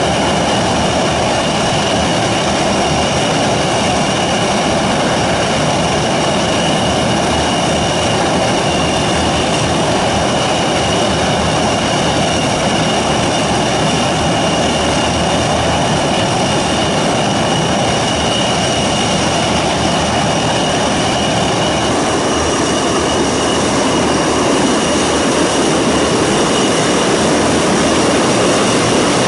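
Antonov An-22 Antei's four Kuznetsov NK-12 turboprops running on the ground, driving their contra-rotating eight-bladed propellers: a loud, steady drone with a high whine over it, growing slightly louder near the end.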